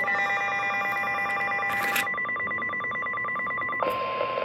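Emergency Alert System alert tones for a severe thunderstorm warning: a steady electronic tone with rapid pulsing beeps layered over it. About four seconds in, the beeping stops and a single steady tone carries on over radio hiss.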